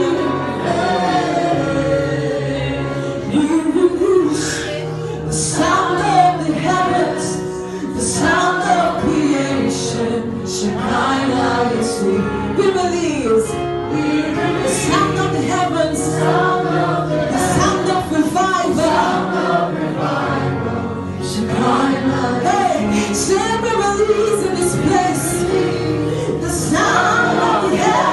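Gospel music: a choir and female voices singing over instrumental backing with held low chords and regular percussion hits.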